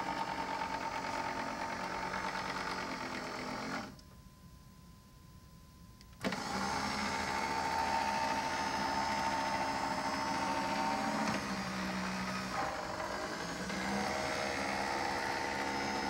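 Escalera electric stair-climbing hand truck's motor and gearbox whining steadily as it climbs over wooden steps on a nearly dead battery. The motor stops for about two seconds a few seconds in, then starts again. Later its pitch sags and rises back.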